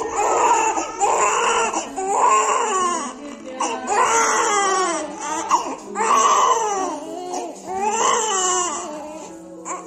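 Newborn baby crying in a string of wails about a second long each, each rising and then falling in pitch.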